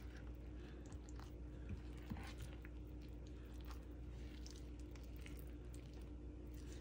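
Fork stirring flour, milk and olive oil in a glass bowl: faint, irregular clicks and scrapes of the fork against the glass, with soft squishing of the wet flour, over a steady low hum.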